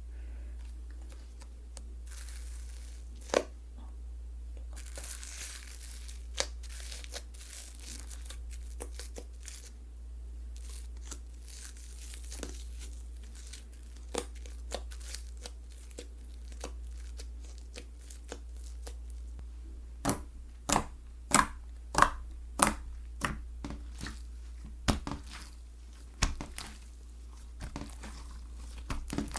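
Hands working a bead-filled slime: soft crinkly crackling, then from about two-thirds of the way in a run of sharp clicks and pops, roughly one or two a second. A steady low hum runs underneath.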